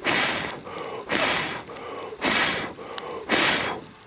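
A person blowing hard onto the glowing coals of a log fire: four long puffs about a second apart, pumping in air to make the embers flare.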